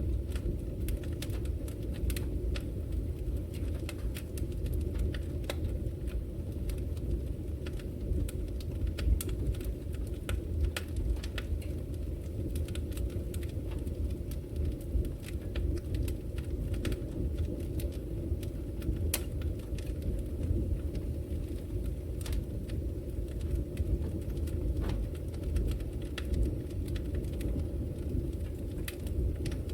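Wood fire burning in a fireplace: a steady low rumble of flames with frequent sharp crackles and pops from the logs, one louder snap about nine seconds in.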